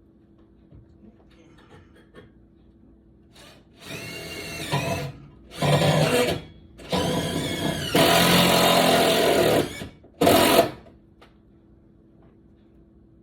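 Power drill run in about six short bursts, speeding up and slowing down with each trigger pull; the longest run lasts nearly two seconds, near the end.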